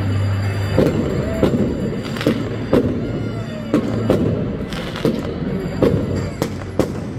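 Fireworks going off in a string of sharp bangs, one or two a second at uneven spacing, over a steady low hum.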